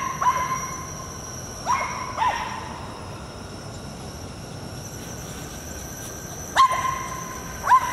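Boston terrier giving short, high yipping barks while it plays, mostly in quick pairs, four or five in all with pauses of a few seconds between them.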